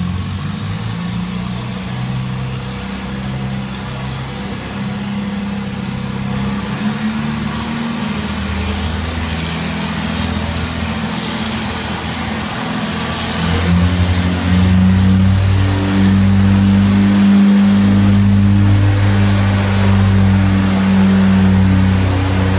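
Farmall tractor engine running under load as it drags a weight-transfer pulling sled, a steady drone that grows louder about two-thirds of the way through.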